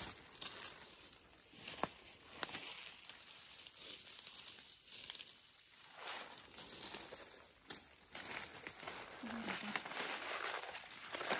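Faint rustling and scattered small snaps and crackles of dry forest-floor litter, with a thin steady high tone behind it.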